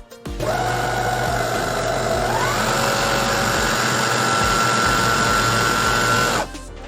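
Electric stand mixer motor running while beating whipping cream. It starts about half a second in, its whine steps up in pitch a little over two seconds in as the speed is raised, holds steady, and stops shortly before the end.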